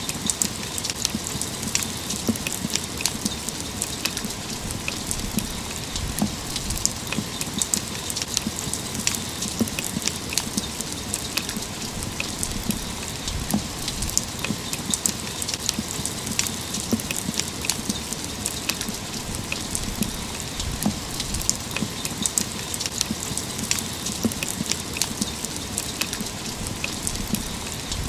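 Steady rain: an even hiss with many close drops landing as sharp, irregular ticks.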